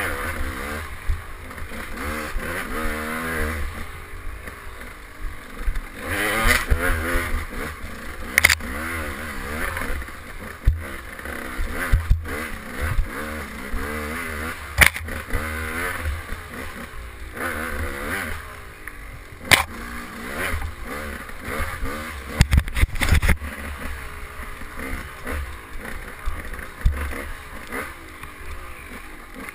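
KTM 200 XC two-stroke dirt bike engine revving up and down over and over under hard trail riding, with sharp knocks every few seconds.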